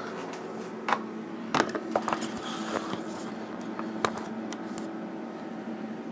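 Handling noises on a desk: a few light knocks and clicks as the silver bar and the pocket scale are picked up and set down, over a faint steady hum.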